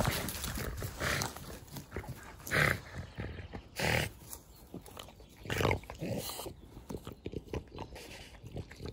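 Dogs playing, making several short, rough noises about a second or so apart.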